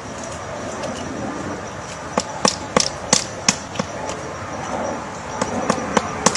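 Woodpecker pecking at wood: sharp, irregular knocks, a few a second, in two bouts, the first about two seconds in and the second near the end.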